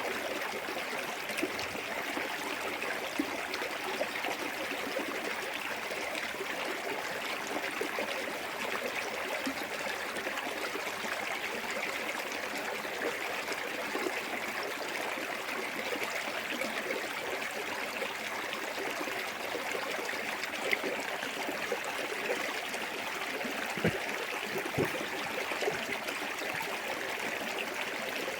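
Small waterfall in a clear forest stream: water running and splashing steadily, with a few brief louder splashes.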